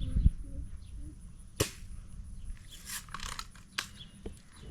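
A single sharp pop of a small gun being fired, about a second and a half in, followed by a couple of faint clicks.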